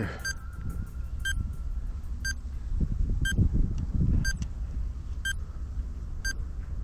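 Short electronic beeps, about one per second, over a steady low rumble.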